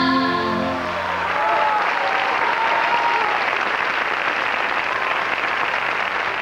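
The last held note of a live pop song dies away about a second in, and an audience applauds steadily after it.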